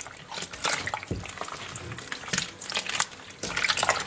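Water running from a tap and splashing unevenly into a sink.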